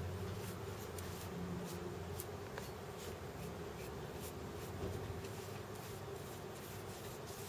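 A wide brush sweeping wet cyanotype emulsion across heavy paper: faint, soft swishes a few times a second, over a low steady hum.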